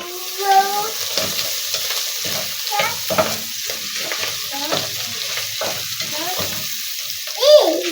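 Meat frying with garlic and ginger in a cooking pot, sizzling steadily as it is stirred in short repeated scraping strokes. A brief high voice-like cry near the end is the loudest moment.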